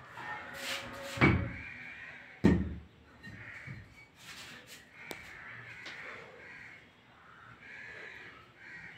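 Bricks set down hard on the floor: two heavy thuds about a second apart, then a light click and a run of softer short sounds.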